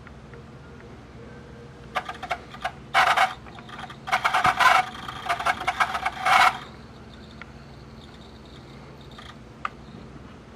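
Rattling, clattering clicks in several bursts for about four seconds in the middle, at a Pioneer CT-W840R dual cassette deck, over a steady low hum.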